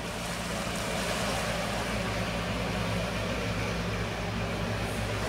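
Lifeboat's diesel engines running steadily at low speed, a deep even hum over a wash of noise.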